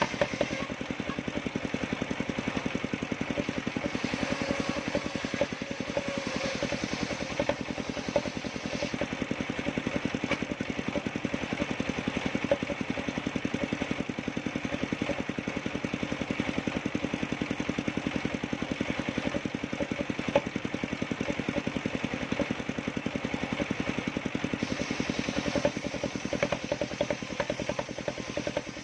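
Engine of a homemade circular-saw sawmill running steadily, with a rapid, even firing beat and no clear rise or fall in speed.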